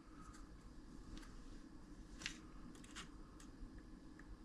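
Near silence with a few faint ticks and taps, scattered about a second apart: multimeter test probes touching the power supply's circuit board, with no continuity beep sounding.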